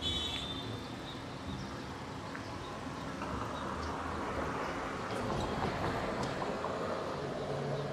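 Downtown street traffic noise: a steady din that swells for a few seconds as a vehicle passes, with a brief high squeak right at the start.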